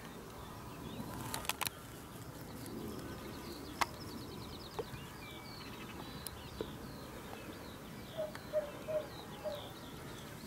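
Wild birds chirping and calling, with a few sharp clicks in the first four seconds and a run of short, lower repeated notes, about three a second, near the end.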